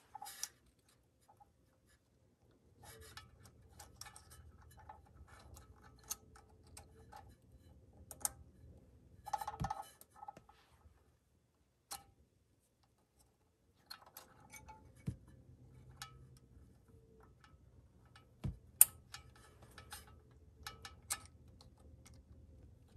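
Scattered small clicks and taps of replacement shift solenoids and their wire connectors being handled and fitted onto the valve body of a Toyota A340 automatic transmission, with a few sharper clicks, the loudest one late on.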